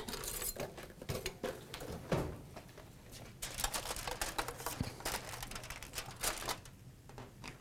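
Aluminium foil crinkling as it is pulled back off a baking tray, with scattered light clicks and clatter, the crinkling thickest in the middle of the stretch.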